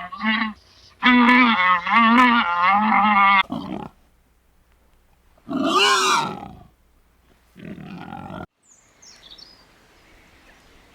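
Farm animals calling: a run of wavering, repeated pitched calls for the first few seconds, then two shorter separate calls, then a sudden cut to a quiet outdoor background with faint high chirps.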